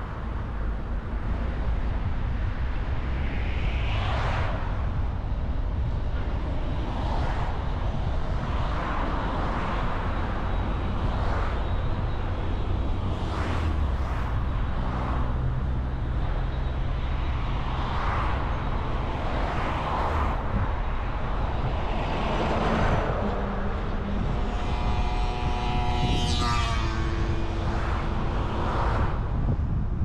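Road noise from a moving car: steady tyre and wind rumble, with whooshes of other vehicles going by every few seconds. Near the end, one passing vehicle's engine tone falls in pitch as it goes past.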